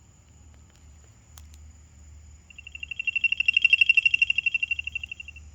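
CE5 contact sound from a phone app, played through a walkie-talkie's speaker: a rapid pulsed high trill that starts about halfway in, swells, then fades near the end. A faint steady high whine sits underneath, with a single click a little over a second in.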